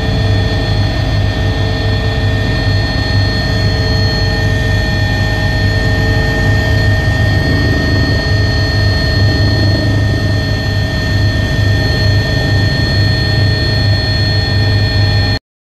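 Loud, steady engine noise with a deep hum and a constant high-pitched whine. It cuts off suddenly near the end.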